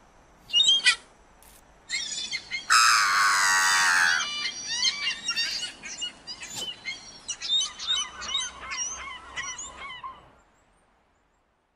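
Cartoon bird calls: a few short chirps, a louder, longer call about three seconds in, then a run of quick chirps that stops about ten seconds in.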